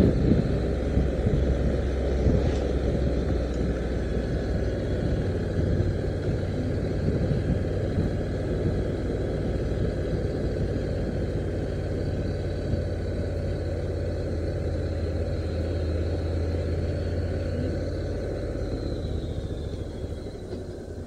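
Honda NC750X DCT motorcycle's parallel-twin engine running at low road speed, with road and wind rumble; the engine hum steps up in pitch about five seconds in and the sound fades down near the end.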